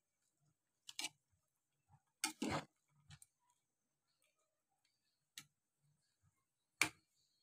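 A white plastic ladle knocking and scraping against a metal soup pot while stirring: about six short, irregular clinks, with a longer scrape-and-knock about two and a half seconds in.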